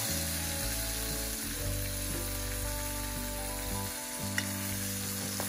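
Raw boneless chicken pieces sizzling in hot oil in a wok among sautéed onion, curry leaves and green chillies, just after going in, with one light click just over four seconds in. Background music with sustained notes plays over it.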